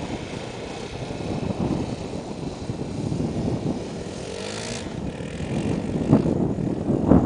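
Honda XR 250 Tornado trail bike's single-cylinder four-stroke engine running, its revs changing, growing louder toward the end.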